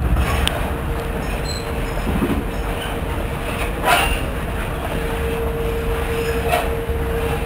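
Log flume lift-hill conveyor hauling the boat uphill: a steady mechanical rumble with a steady hum that strengthens in the second half. There are a few short clanks, the loudest about four seconds in.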